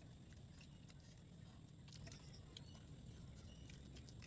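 Near silence: a faint low rumble of background noise with a few faint ticks.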